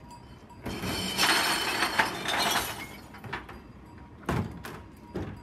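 Contents of a wheelie bin tipped into the hopper of a rear-loader garbage truck, crashing and clattering for about two seconds, followed by a few separate knocks of the bin against the hopper.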